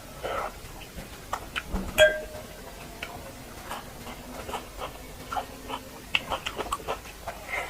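Close-up mouth sounds of eating duck curry: a run of small wet chewing clicks and lip smacks. About two seconds in comes a single sharp clink that rings briefly, like a utensil or fingers striking a metal plate.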